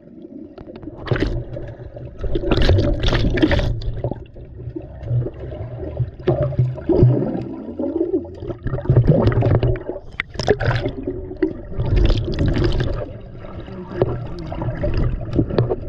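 Water and bubbles moving around a GoPro camera held under water in a swimming pool: a muffled, rumbling gurgle with repeated bursts of bubbling and splashing.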